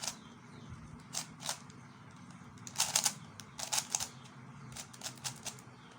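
Plastic YJ Fisher cube being turned by hand, its layers clicking in short runs of quick turns with pauses between them.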